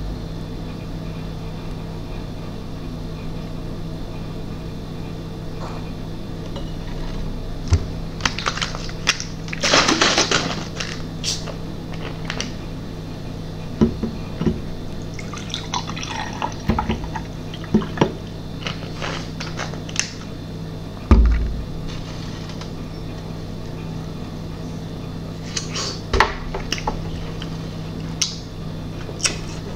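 Orange juice poured from a plastic bottle into a glass mug, with clinks and knocks of the bottle and glassware on a glass tabletop and one heavy knock about two-thirds of the way through. A steady low hum sits underneath.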